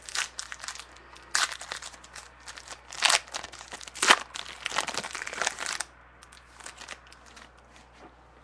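Trading card pack wrapper being torn open and crinkled by hand, a dense crackle for about six seconds, then a few lighter crackles.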